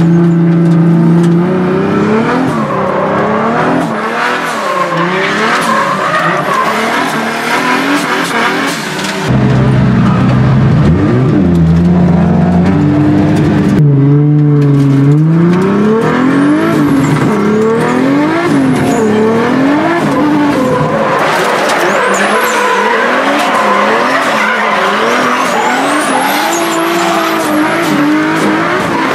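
Drift car's engine revving hard from inside the cabin, its pitch rising and falling again and again as the throttle is worked through the slides. Tyres squeal and skid, most heavily through the last third.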